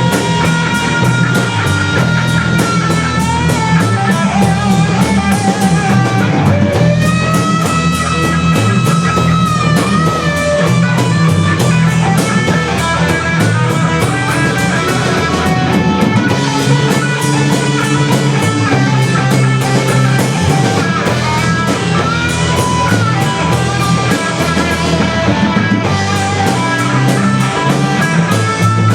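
Rock band playing an instrumental passage: a lead guitar holding long notes and bending them up and down over bass and drum kit.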